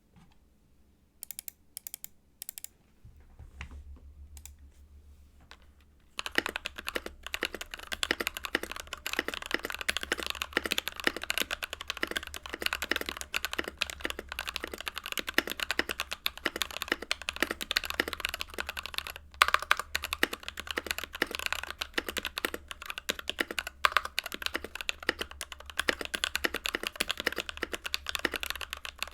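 Typing on an NK65 mechanical keyboard with stock factory-lubed Silk Emerald switches, a polycarbonate plate and stock keycaps. A few single key presses come first, then from about six seconds in there is continuous fast typing. The owner finds the stock switches a little scratchy, with some spring ping.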